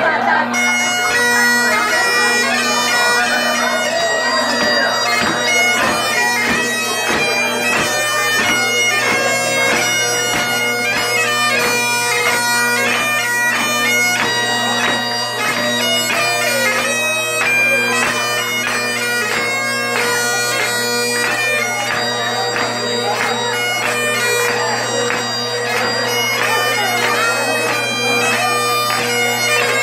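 Great Highland bagpipes playing a tune: steady drones under a chanter melody of changing notes with many quick ornamental notes.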